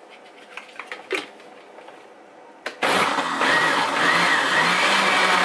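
A few light knocks as the lid goes back on a countertop blender, then about three seconds in the blender motor starts and runs steadily at full speed, churning frozen fruit and ice.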